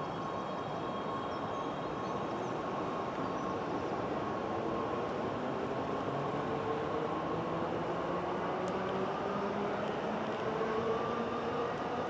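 NS Sprinter Lighttrain (SLT) electric multiple unit pulling away and accelerating, its electric drive giving a whine of several tones that climb steadily in pitch together over the rumble of the train running.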